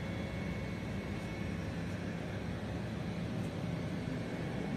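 Fume extractor for a fiber laser marking machine, its blower running steadily with a low hum.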